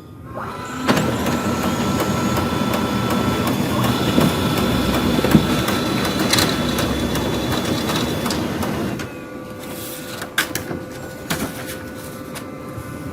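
Brother MFC-7360N laser printer running its drive mechanism, a steady mechanical whir with a faint tone for about eight seconds. It then drops to a quieter run with a few sharp clicks.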